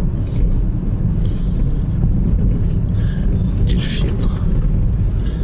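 Steady low rumble of road and engine noise inside a moving car's cabin, with a brief hiss about four seconds in.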